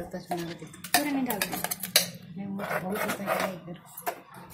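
A spoon clinking and scraping against the inside of a pressure cooker as a thick curry is stirred, in many short knocks.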